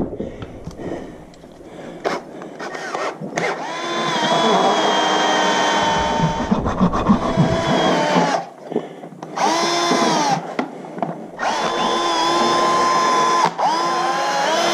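Milwaukee cordless drill running at a metal strap hinge screwed to a horse's hoof, in three runs: about four seconds, then a brief one, then about four more. Each run winds up, holds a steady whine and winds down as the trigger is squeezed and let go.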